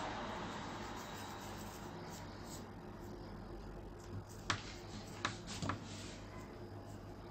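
Fingers pressing and rubbing sugar paste into a silicone mould on a tabletop: soft handling noise with a few short taps in the second half, over a steady low hum.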